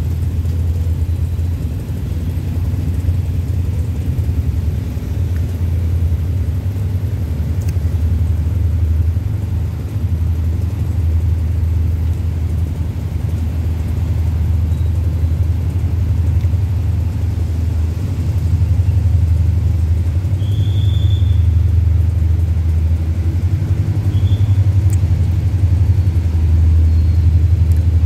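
Low, steady rumble of the diesel locomotive of an approaching express train, growing a little louder in the second half as the train nears the level crossing.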